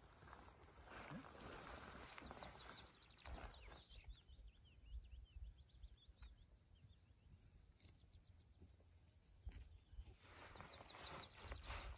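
Near silence, with a small songbird singing faintly: a quick trill and a run of short chirping notes between about three and seven seconds in, and another brief trill near the end. Underneath are a low rumble and patches of rustling hiss.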